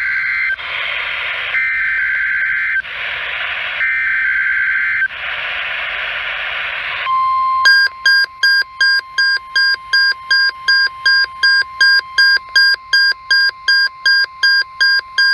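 NOAA Weather Radio test signal. It opens with three bursts of SAME digital header data, each about a second long, with bursts of hiss between them. About seven seconds in, the steady 1050 Hz weather radio warning alarm tone starts. Under a second later a beeping alert begins over the tone, about two and a half beeps a second.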